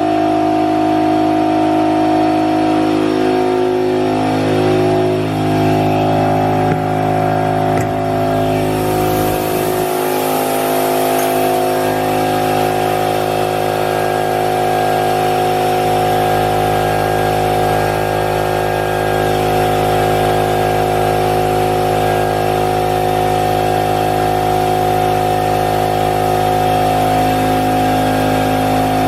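Brother Speedio S700X1 vertical machining center running, a steady mechanical hum and whine made of several tones, some of them shifting in pitch in the first few seconds. A high hiss joins in about eight seconds in and stops about four seconds later.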